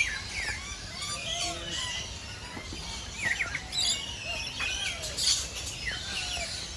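Many birds chirping and calling at once: a busy chorus of short, quick chirps that slide up and down in pitch, overlapping all the way through.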